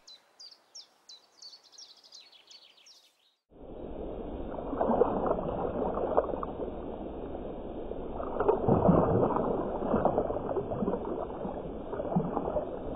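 Faint bird chirping, about three chirps a second. About three and a half seconds in, water churning and splashing in several surges as a big pike thrashes in shallow water at the bank.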